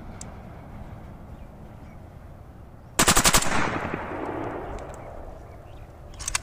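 Bulgarian Kalashnikov-pattern rifle in .222 firing one short automatic burst of about six rapid shots, roughly three seconds in, followed by echo dying away over a couple of seconds.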